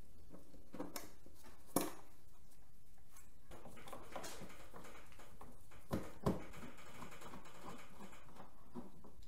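Hands-on workshop work on a Harley Tour-Pak luggage box: a sharp knock about two seconds in, two more knocks close together about six seconds in, and light clicking and rustling between them as parts and tools are handled.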